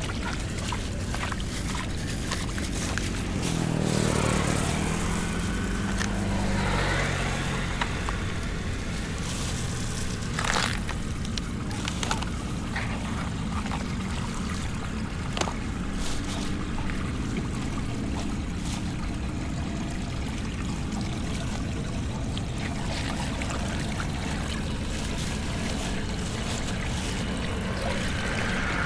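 Floodwater pouring and flowing steadily, with a motor vehicle's engine passing about four seconds in.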